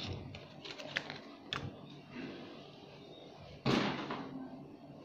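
A few light clicks and taps of things being handled on a tabletop, then one loud, sudden thump a little past halfway through, dying away within half a second.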